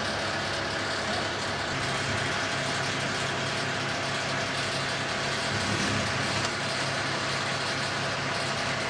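Fire engine's diesel engine idling with a steady, even hum.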